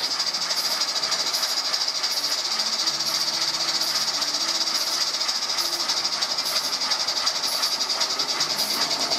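Regner 99 222 live-steam garden-railway locomotive running on a roller stand, its steam exhaust giving a loud, steady hiss with a fast, even beat of puffs.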